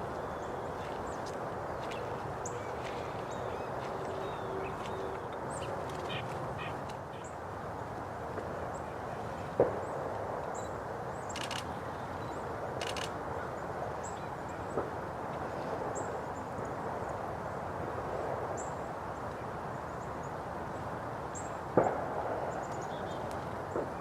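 Small wild birds giving short, high chips and calls over a steady rushing background, with a couple of sharp knocks, one about ten seconds in and one near the end.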